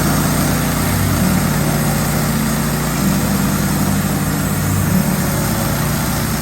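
Wood-Mizer LT15 portable bandsaw mill's gas engine running steadily.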